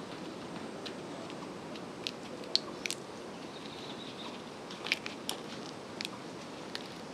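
Scattered sharp little clicks and dry crackles as smoked flying fish are unhooked one by one from the wire hooks of a wire-mesh smoking rack: metal hooks clinking on the mesh and the stiff dried fish rattling. A steady background noise runs underneath.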